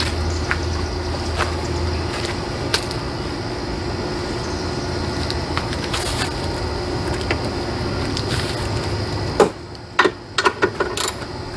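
Scattered metallic clicks and knocks as bolts are threaded and tightened by hand and with a wrench on a boat's motor-mount bracket, with a small cluster of them near the end, over a steady background hum.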